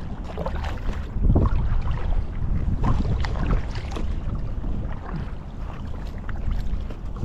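Kayak on a flowing creek: irregular paddle dips and water splashing against the hull, over a steady low rumble of wind on the microphone.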